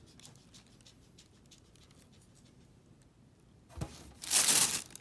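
Tissue paper in a shoe box being folded back. It makes faint small crinkles at first, then a soft knock near the end, followed by a loud burst of paper rustling.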